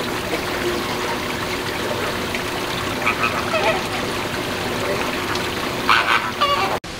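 Flamingos honking, a few calls about three seconds in and a louder cluster of honks near the end, over a steady wash of trickling water.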